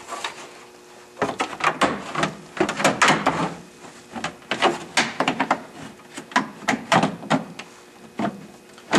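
Formed plastic dash panel clacking, knocking and scraping against a Club Car Precedent golf cart's body as it is pushed and worked into place, in irregular clusters of sharp clicks starting about a second in.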